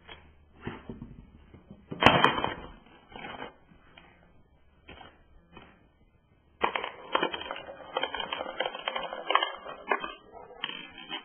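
Parts of a homemade Rube Goldberg machine knocking, falling and rolling: scattered knocks with one sharp crash about two seconds in, then a dense rattling clatter lasting about three seconds, and a short final clatter near the end.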